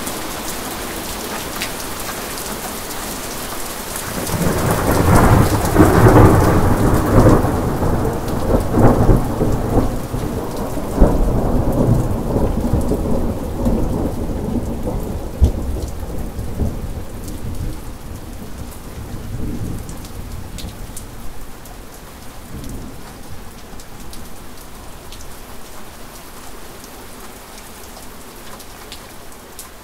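Steady rain falling, with a long roll of thunder that swells about four seconds in, is loudest over the next several seconds with a few sharp cracks, then rumbles slowly away.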